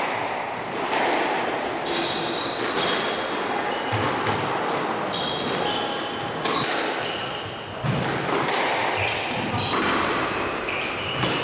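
Squash rally: the ball smacking off rackets and the court walls in irregular sharp hits, with short high squeaks of shoes on the wooden floor between them.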